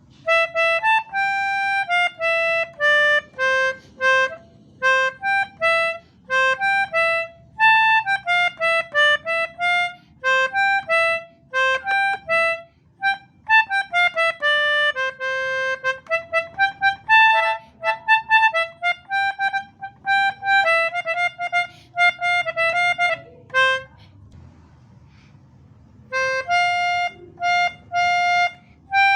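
Pianika (melodica) playing a telolet bus-horn tune: quick, short notes in repeated phrases, with a pause of about two seconds near the end.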